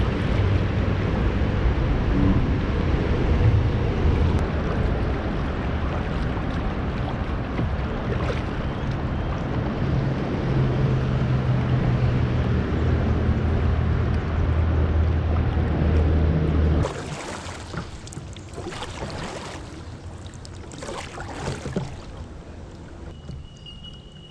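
Kayak paddling heard through a bow-mounted action camera: a loud steady rumble of wind buffeting the microphone over moving water. About 17 seconds in it drops off abruptly to quieter water sounds with a few paddle splashes. A brief high whistle-like tone comes near the end.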